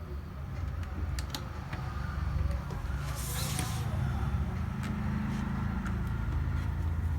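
Light clicks and a short rustle about three seconds in as laptop parts are handled, over a steady low rumble.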